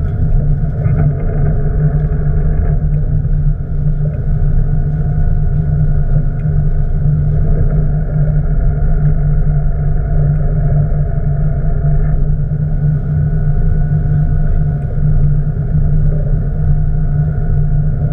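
Boat engine running steadily, a continuous low rumble with a faint hum above it.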